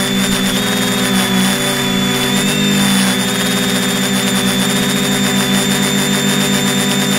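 A drone's electric motors and propellers, heard from its onboard camera: a steady hum with a high whine over it, the hum breaking into a fast pulse about three seconds in.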